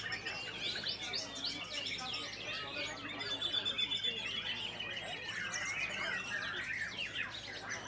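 White-rumped shamas (murai batu) singing at once in a contest line-up: a dense, overlapping stream of quick chirps, trills and whistles, with one longer steady whistle about three seconds in.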